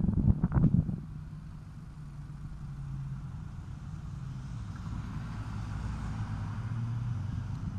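A motor vehicle engine running close by, a low hum that slowly drops in pitch and grows louder toward the end, with a few knocks in the first second.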